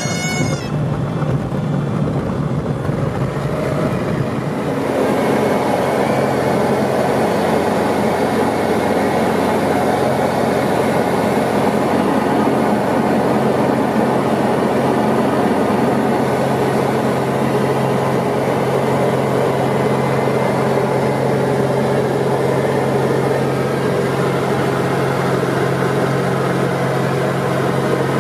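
Diamond DA40 light aircraft's engine and propeller heard from inside the cockpit: a steady drone with a constant low hum, growing louder about five seconds in.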